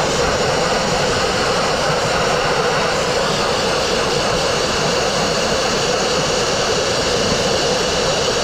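Dustless blasting nozzle firing continuously: a steady, loud rush of compressed air, water and fine crushed-glass media striking the wall as it strips cement-backed paint from brick.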